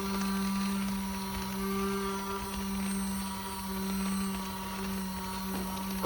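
A steady, low mechanical hum, like a small motor running, slowly swelling and easing in loudness.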